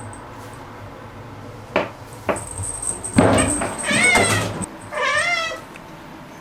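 Domestic cat meowing loudly and excitedly at an insect it has spotted: two short calls, then two long wavering meows.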